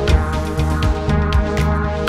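Electronic background music with a steady beat and pulsing bass line.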